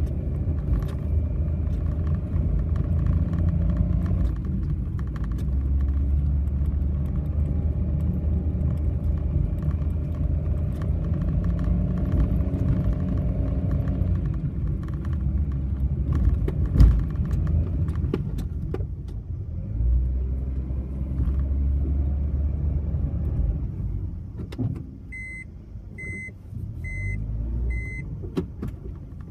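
Honda N-BOX kei car's engine and road noise while driving, with scattered rattling and clicking: the abnormal noise the owner is investigating. Near the end come four short beeps about a second apart.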